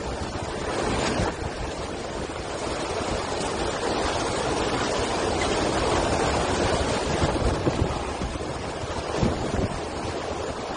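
Strong storm wind blowing in gusts, rumbling against the microphone; it swells towards the middle and eases again.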